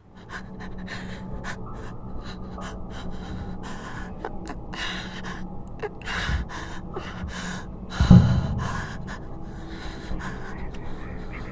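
A person breathing hard in short gasps and pants, with a steady low hum beneath and a heavy thump about eight seconds in.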